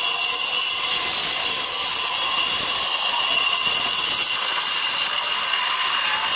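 Angle grinder with a cutting disc running under load as it cuts a clean line into a rendered brick wall. It makes a loud, steady, high grinding hiss.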